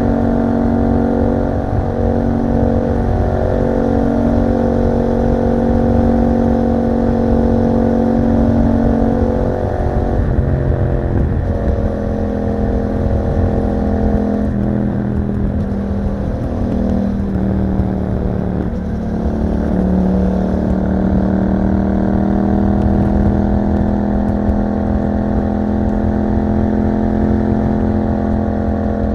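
2021 Yamaha MT-07's parallel-twin engine through an Akrapovic exhaust, heard while riding. It holds a steady note at first; from about a third of the way in, the pitch drops and jumps several times as the bike slows and changes gear, then it settles into a steady note that rises slowly near the end.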